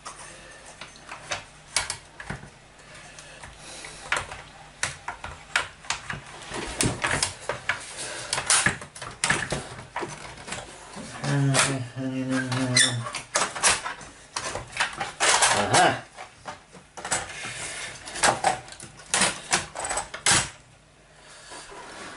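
Irregular clicking, knocking and rattling of the Yamaha DX11's plastic keys and metal keyboard frame as the key assembly is worked loose and lifted out of the synthesizer's case.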